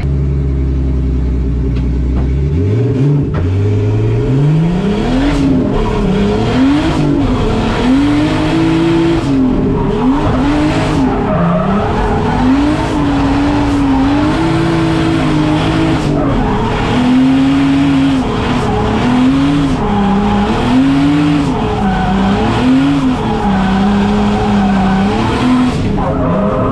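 BMW E30 drift car's engine heard from inside the cabin, idling low for a couple of seconds, then revving up and down over and over as the car is driven hard and drifted, with tyre squeal beneath.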